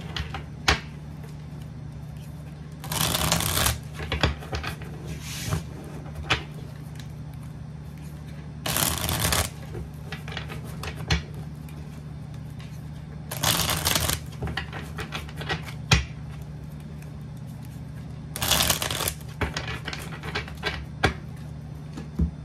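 A deck of tarot cards being shuffled by hand: four bursts of shuffling about a second long and some five seconds apart, with light clicks and taps of the cards between them.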